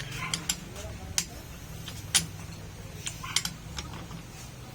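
Light metallic clicks and taps at irregular intervals over a low steady hum, as of metal parts and tools being handled.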